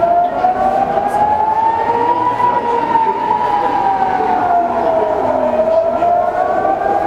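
Civil-defence air-raid siren wailing, its pitch rising slowly for about two seconds, falling for about three, then starting to rise again near the end. This rising-and-falling wail is the alert for incoming rocket fire.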